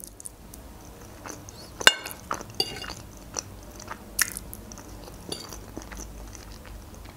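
A person chewing mouthfuls of mimosa salad, a soft layered salad of fish, egg and mayonnaise, with scattered short clicks. The sharpest click comes about two seconds in.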